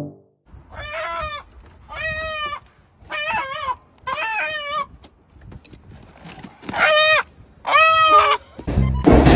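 An animal calling six times, in short pitched calls about a second apart with a longer pause midway. A louder burst of noise comes in near the end.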